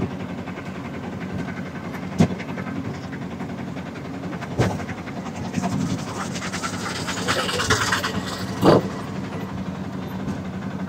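A road vehicle driving along, a steady engine and road noise, with three sharp knocks, about 2, 4.5 and almost 9 seconds in.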